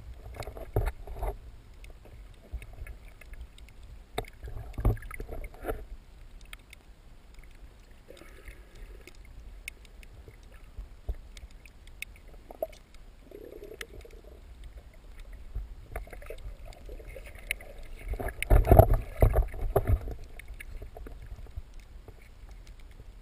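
Water sloshing and moving around a camera held underwater, muffled, with scattered small clicks and knocks. About three-quarters of the way in comes a louder bout of low thumps and sloshing.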